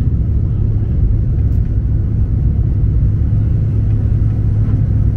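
Cabin noise of a Bombardier CRJ1000 climbing just after takeoff: a steady low rumble from its rear-mounted turbofan engines at climb power and the rush of air past the fuselage, with a constant low hum underneath.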